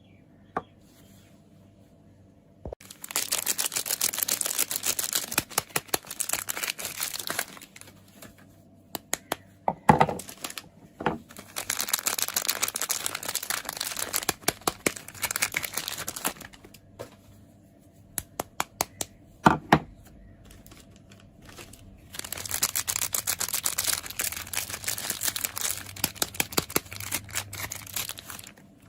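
Soap packaging being crinkled and torn open by hand, in three long bouts of dense crackling with sharp taps and clicks between them.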